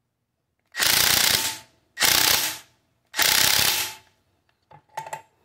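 Ratchet wrench snugging down the clamp bolt on a truck drop-axle tie rod tube: three runs of ratchet clicking, each under a second, then a few light clicks near the end as the clamp comes tight.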